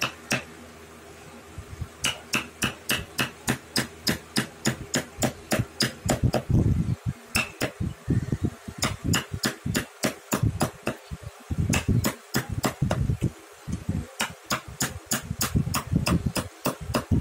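Wood-carving chisel being struck by hand, cutting into a carved wooden elephant, in a run of sharp taps. After a single tap at the start the tapping begins about two seconds in and keeps up at about three strikes a second, slightly uneven.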